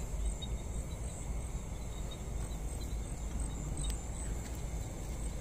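Field insects chirping in a steady, high, pulsing chorus over a continuous low rumble.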